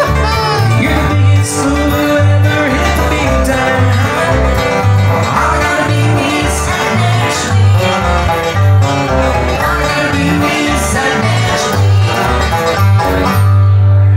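A live band playing, with a steady, rhythmic bass line under the other instruments.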